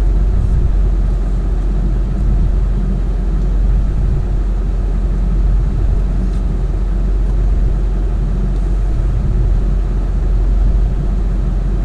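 Ford F-350 Super Duty dually pickup's engine idling, a steady low rumble heard from inside the cab.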